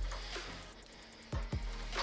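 Background electronic music with a beat: deep kick drums, sharper snare hits and a steady bass line.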